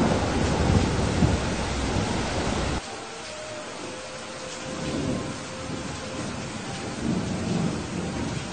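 Thunderstorm: a low rolling thunder rumble over heavy rain that cuts off suddenly about three seconds in. A quieter steady rain hiss follows, with a faint steady tone in it.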